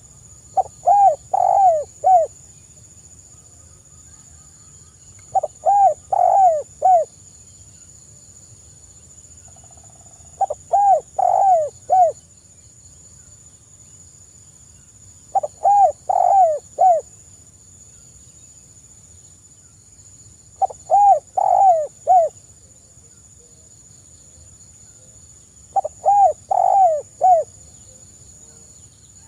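Spotted dove (tekukur) cooing: six phrases about five seconds apart, each a quick run of four or five coos lasting about a second and a half.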